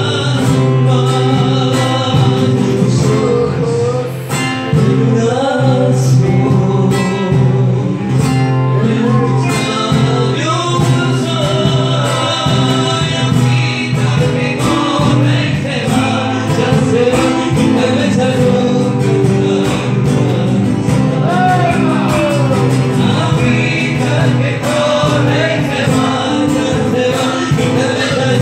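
Live acoustic band: a man singing into a microphone over strummed acoustic guitars, with a cajón keeping the beat.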